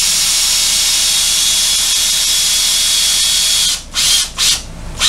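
A cordless drill runs steadily with a high whir, stops about three and a half seconds in, then gives three or four short trigger bursts.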